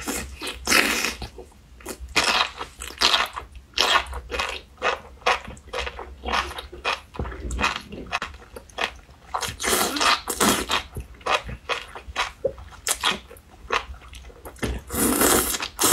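Close-miked slurping and chewing of enoki mushrooms in spicy red chili broth, eaten in mouthfuls from chopsticks: short irregular slurps and chews, loudest about fifteen seconds in.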